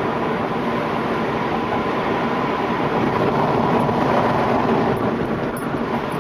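Steady road and engine noise inside a moving car's cabin, swelling a little for a couple of seconds midway.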